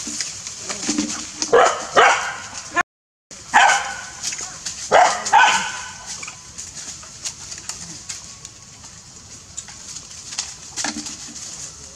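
Dog barking in short loud bursts: a pair about two seconds in, more near four and five seconds, and a fainter one near the end.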